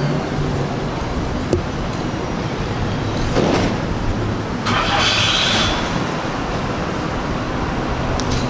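Motor vehicle sound: a steady low engine hum, with two brief rushes of noise a few seconds in.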